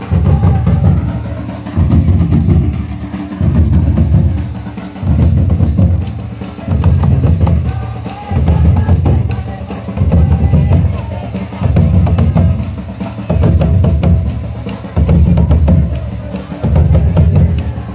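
Procession drumming led by a large bowl-shaped nagara drum beaten with two sticks, with other folk drums: a cluster of deep booming strokes repeats about every second and a half, with sharper stick hits between.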